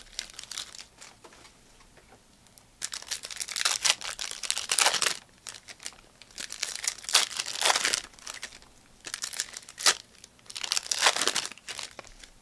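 Trading-card pack wrappers crinkling and tearing open in about four bursts of a second or two each.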